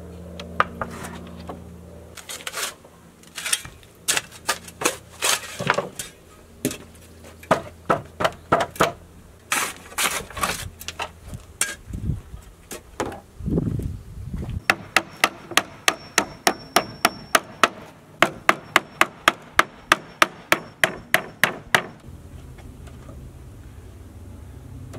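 Hammer driving nails into pallet boards: scattered strikes at first, then a steady run of about three to four blows a second for several seconds.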